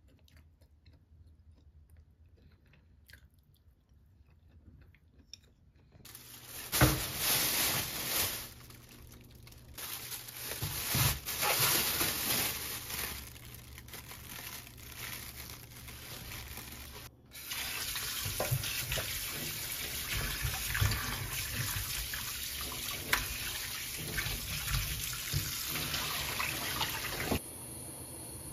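Very quiet for the first few seconds. Then a plastic bag of pork back bones rustles and tap water runs, with the water steadier in the second half.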